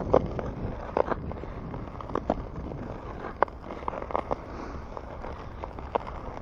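Wind rumbling on the microphone, with scattered short clicks and scrapes from ice skates on lake ice.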